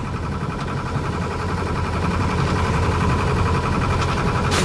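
Small boat engine running steadily at low revs, with a sharp click near the end.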